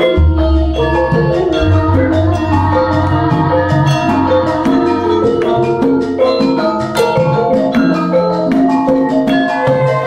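Javanese gamelan ensemble playing: bronze bonang and saron metallophones ringing in interlocking patterns over kendang drums. Deep gong strokes sound at the very start and again about two seconds in.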